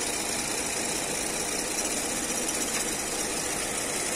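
Chevrolet Aveo's Ecotec four-cylinder petrol engine idling steadily, freshly installed. It runs quietly and smoothly, with no knock or vibration, a sign that its timing is right.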